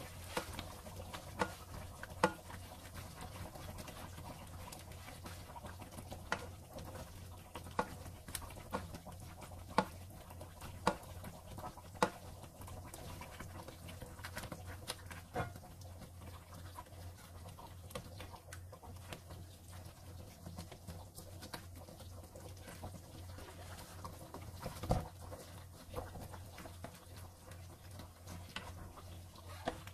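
A slotted spoon clicking and scraping against a nonstick pan at irregular moments as coconut milk is spooned over fish simmering in it, over a steady low hum.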